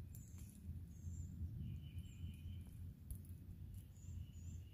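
Faint forest ambience: birds chirping in short high calls several times, with a steady high tone that comes in twice, over a low rumble.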